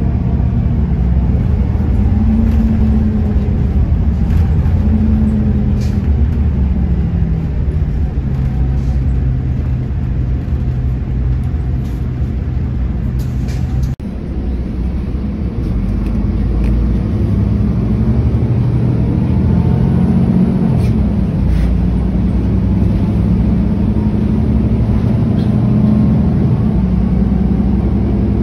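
Solaris Urbino 18 III articulated city bus engine idling steadily while the bus stands at a stop, its pitch wavering slightly now and then. There is a sudden short break about halfway through.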